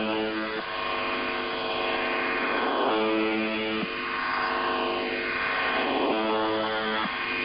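UVB-76 "The Buzzer" shortwave time signal received over radio: a harsh buzz tone of about a second repeats roughly every three seconds, three times here, over a steady hum and static. Slow sweeping whistles rise and fall through the noise.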